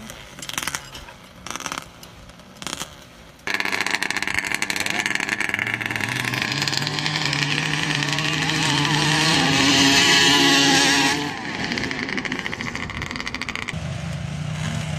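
Off-road racing engines of ATVs and three-wheelers running hard across sand, growing louder to a peak about ten seconds in and then dropping off sharply, with a steadier engine note near the end. A few scattered knocks come before the engines cut in.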